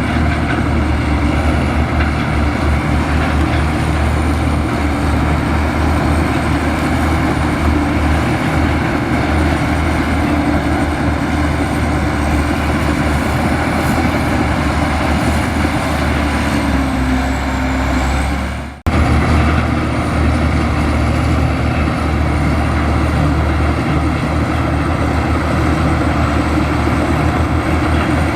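Heavy diesel earth-moving machinery running steadily, with its deep engine drone the loudest part. About two-thirds of the way through, the sound briefly drops out and then resumes unchanged.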